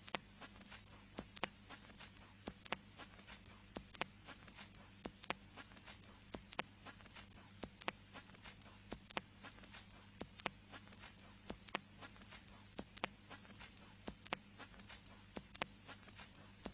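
Surface noise of a 45 rpm vinyl record playing through its silent groove: a faint steady crackle with a louder click about every 1.3 seconds, once per turn of the disc, over a low steady hum.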